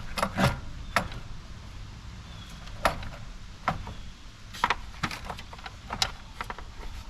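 Irregular metallic clicks, clinks and knocks of hand tools and loose parts being handled while working on a car's front end, spaced roughly half a second to a second apart.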